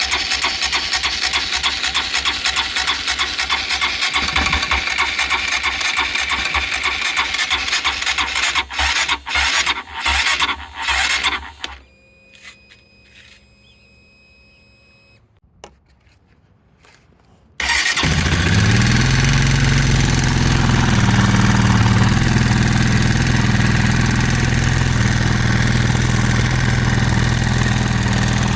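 Honda CRF150L's single-cylinder four-stroke engine idling with a rapid ticking from the cylinder head, which keeps on after a tappet readjustment and which the owner wonders may come from loose rocker-arm clearance. Partway through the engine falters and stops, then after a few seconds of quiet it is started again, catches at once and settles into a steady idle.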